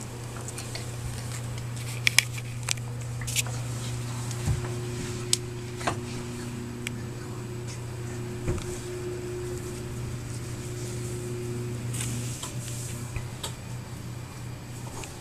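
A steady low hum under scattered light clicks and rustling, as a young Yorkshire terrier puppy shifts about on cardboard and towels in its box. The sharpest clicks come in a cluster a couple of seconds in.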